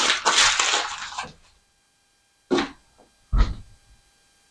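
Rustling, scraping handling noise that fades out about a second in, then two short knocks about a second apart, the second a dull thud, as supplies are moved about on a shelf.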